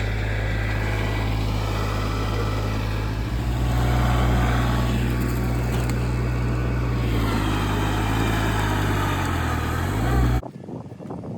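An engine running steadily at a constant low pitch. Its pitch dips and climbs again shortly before the sound cuts off abruptly near the end.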